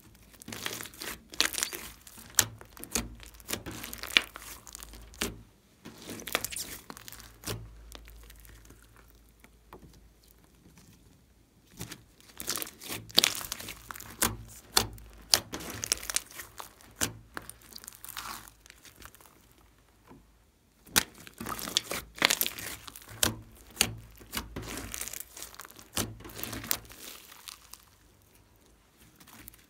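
Pink glitter slime being kneaded, squeezed and stretched by hand, giving off sticky crackling and clicking sounds in three long runs with quieter pauses between.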